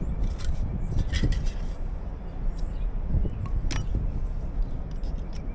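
A few brief light clinks and taps, about half a second in, around one second and just before four seconds, over a steady low rumble, like hand tools and hardware being handled.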